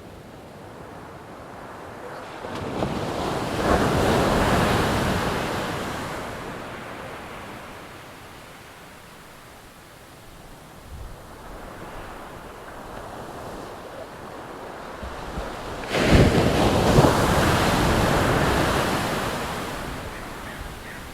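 Ocean waves breaking on the shore twice, each swelling and then washing away over several seconds; the second breaks suddenly about three-quarters of the way through.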